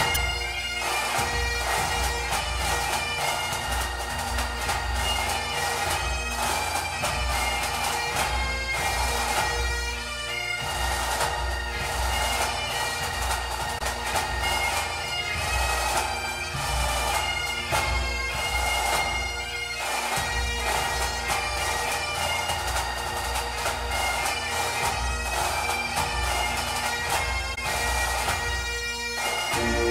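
Bagpipe music: a piped tune over steady drones, with a regular drum beat underneath.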